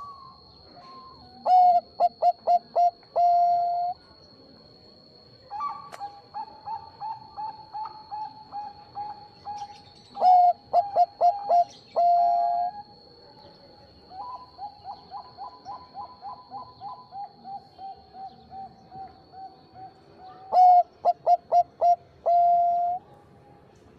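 Zebra dove (Bangkok perkutut) singing: three loud cooing phrases, each a quick run of short notes ending in a longer held note, about nine seconds apart, with softer rapid cooing runs in between. A faint steady high tone runs underneath.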